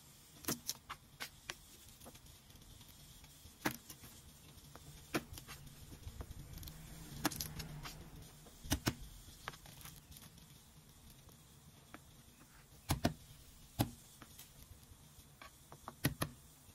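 Chef's knife tapping and knocking on a plastic cutting board while garlic cloves are trimmed and cut: scattered sharp taps at an uneven pace, some in quick pairs or clusters.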